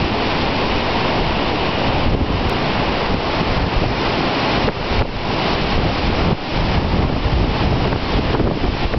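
Strong gusting wind running ahead of a dust storm, buffeting the microphone with a loud, steady rush that dips briefly a few times past the middle.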